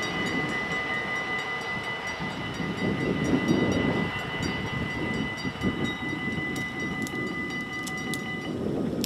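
Dutch level-crossing bells ringing fast and evenly while the barrier arms rise after the train has passed, then stopping near the end. A low rumble from the train that has just gone by runs underneath.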